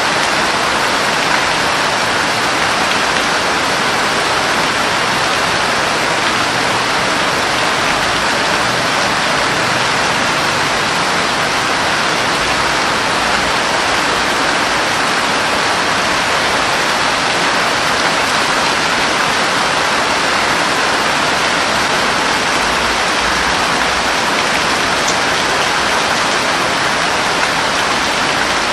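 Steady rain falling, an even, dense hiss that holds unchanged throughout.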